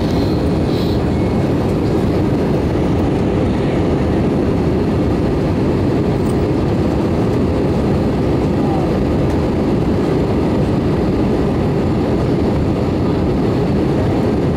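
Steady low rushing noise of an Airbus A320's jet engines and airflow, heard inside the passenger cabin in flight.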